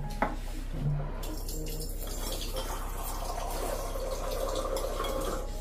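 A short click, then water running steadily for about four seconds, starting a little over a second in and stopping near the end.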